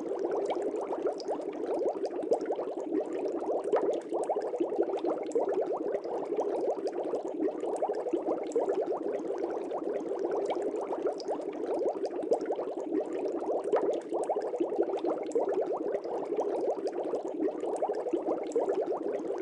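Aquarium water bubbling steadily: a dense, even stream of tiny bubble pops with no change.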